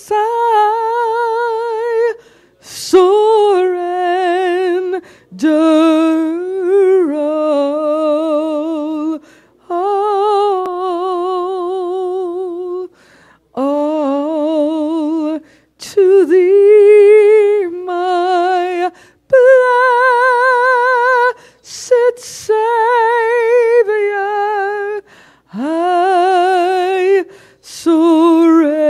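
A woman's voice singing unaccompanied into a microphone: slow, long-held notes with a strong vibrato, in phrases of two to four seconds broken by short breaths.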